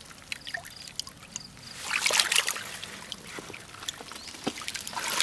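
Hands groping and splashing in a shallow muddy puddle: water sloshing and trickling, with a louder splashy stretch about two seconds in.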